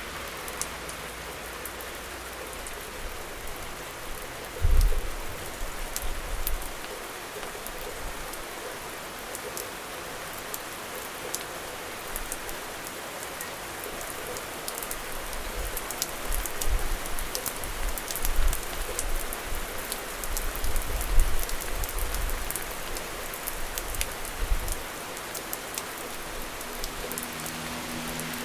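Steady rain falling, with many sharp drop ticks on hard surfaces. Short low rumbling thumps come through about five seconds in and again off and on through the second half.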